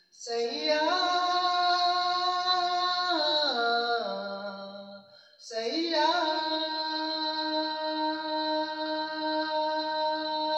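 A young man singing into a handheld karaoke microphone: a phrase that climbs and then falls away, a short break for breath about halfway in, then one long held note.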